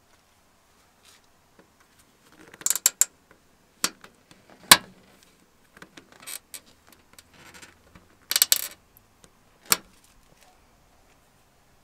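Pliers working an old plastic hood prop rod clip loose from the car's sheet-metal body: a series of sharp clicks and snaps, the loudest about halfway through, with short rattling clusters early on and again near the end.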